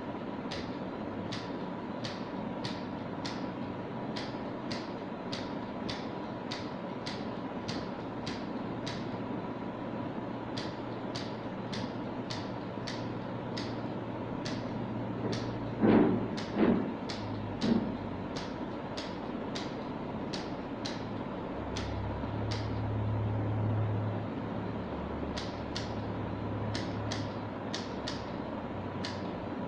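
Three quick thumps from a chiropractic adjustment about halfway through, over a steady ticking a little under twice a second. A faint low hum swells for a couple of seconds later on.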